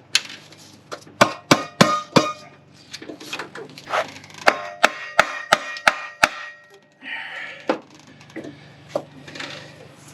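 Sharp metal clanks and knocks, some ringing briefly, as the timing cover and metal parts are handled and set against the engine: a run of about four strikes about a second in, then about six more between four and six seconds in, followed by a brief rustle.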